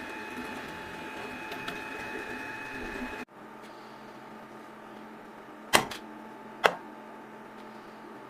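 Vacuum cleaner motor running with a steady whine, cut off abruptly about three seconds in. A quieter steady hum follows, with two sharp clicks a second apart.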